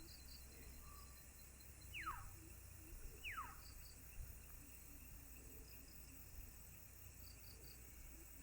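Faint ambience with soft, repeated insect-like chirps. Twice, about two seconds in and again a little over a second later, a short whistle slides quickly down in pitch.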